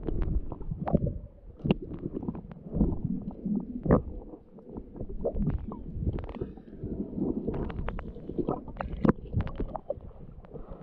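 Muffled underwater sound on a snorkeller's camera: water rumbling and sloshing around the housing, with many scattered clicks and knocks. Near the end the camera breaks the surface and the sound turns to splashing.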